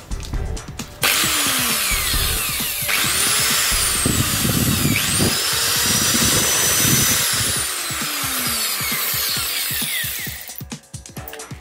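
Electric angle grinder with no disc fitted, switched on about a second in and run unloaded for about nine seconds as a test after its gear head was serviced, then switched off and winding down near the end. Background music plays under it.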